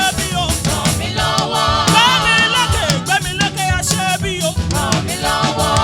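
Live gospel praise music: singing voices with vibrato over a band with bass and a busy drum beat.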